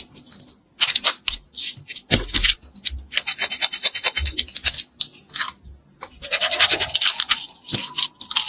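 Play-dough and a plastic plunger cutter being handled: rapid clicking and scratching of plastic, thickest a few seconds in. A tone rises steadily over the last couple of seconds.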